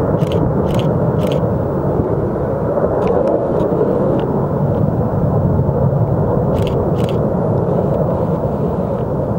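Distant jet engine noise from a formation of Saab JAS 39 Gripen fighters (each with a single Volvo RM12 turbofan): a steady low rumble. A few short sharp clicks sound over it, three in the first second and a half and two more later.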